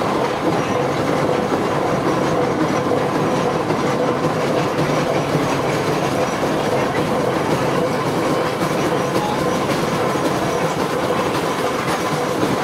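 Steady running noise of a slow-moving passenger train heard from aboard, with wheels rumbling and clattering over the rails and a faint steady tone underneath.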